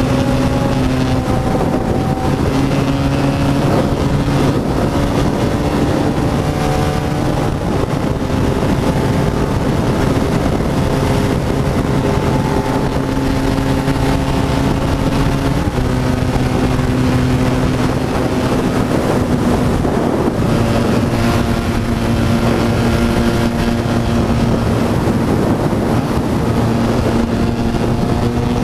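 BMW F800GS parallel-twin engine running at a steady highway cruise, its note holding even with slight shifts in pitch a few times, under a constant rush of wind.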